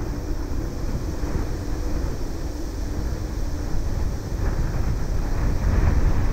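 Wind buffeting the microphone with a low rumble, over the distant hum of a Boeing 767-300ER's twin jet engines on landing approach. The sound grows a little louder in the second half.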